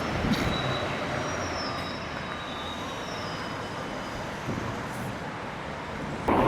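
Steady background noise of city traffic.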